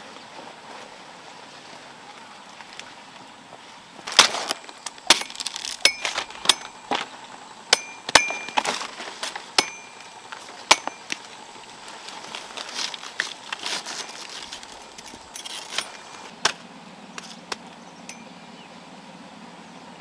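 Knife blade chopping through banana leaf stalks: a run of irregular sharp chops, some with a brief metallic ring, starting about four seconds in and stopping a few seconds before the end.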